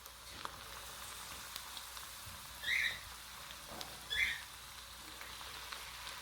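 Cornstarch-coated chicken pieces frying in oil in a wok: a steady sizzle with scattered small crackles. Two short high-pitched squeaks stand out, about two and a half and four seconds in.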